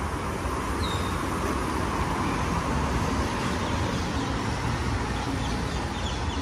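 Steady road traffic noise, an even rush of passing cars with a low rumble.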